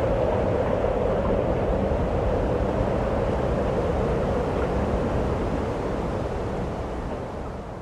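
A steady rushing noise with a low rumble underneath, fading away near the end.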